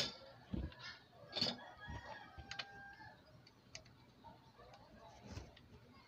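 Faint scattered knocks and clicks from hand work on a CRT TV chassis, with a bird calling faintly in the background.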